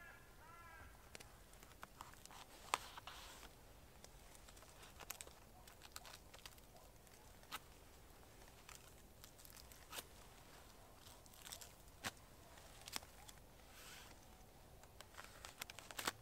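Faint, irregular scraping, crackling and tearing of papery bark curls being pulled off a dead birch trunk, with scattered sharp clicks.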